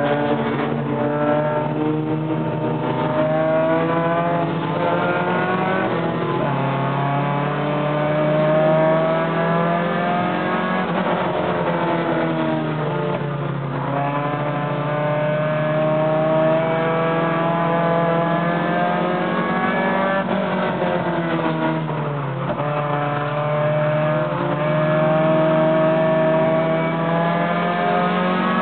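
Short-track Bandit-class stock car engine racing at full throttle. Its pitch climbs for several seconds down each straight and drops briefly several times as the driver lifts for the turns.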